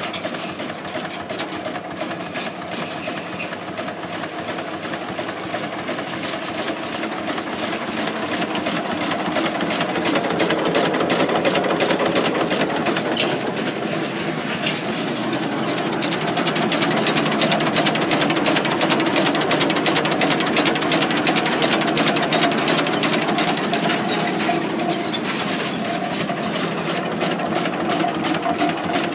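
Rumely OilPull 20-40 Model G tractor's two-cylinder engine running at a steady speed, with a fast, even beat of firing strokes. It grows somewhat louder through the middle part.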